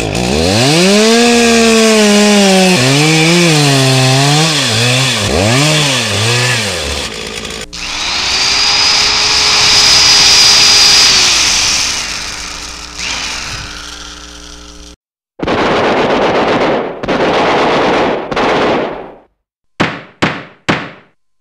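Woodworking power tools in a run of edited clips. First, a motor whose pitch swoops up and down for several seconds. Then a power saw spins up to a steady whine and winds down. Then come rasping strokes, first about a second long each and then quick ones about three a second near the end.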